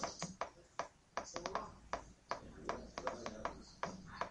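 Faint, irregular clicks and taps, many of them close together, with a faint voice underneath.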